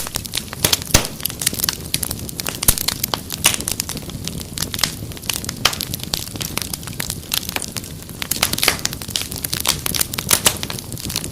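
Wood fire crackling and popping in an irregular stream of sharp snaps over a low rumble of burning.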